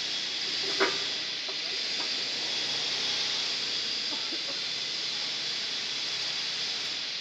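Steady hiss, with one sharp click about a second in and a few faint taps after it, as a camshaft is turned by hand in the bearing saddles of a six-cylinder cylinder head.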